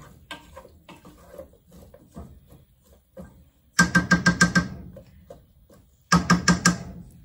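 Wooden spoon stirring and scraping chopped watermelon rind and tomatoes in a stainless steel pot, then rapped fast on the pot's rim in two quick runs of about six knocks each, a little over halfway through and again near the end, the metal pot ringing with each knock.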